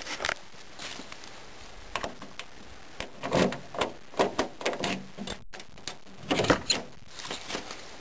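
Car keys jingling and a key clicking and scraping in a car door lock, several short rattling clicks in a row, as the driver's door is unlocked and its handle worked.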